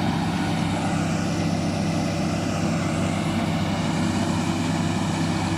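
Shantui DH17 bulldozer's diesel engine running steadily, a constant low drone.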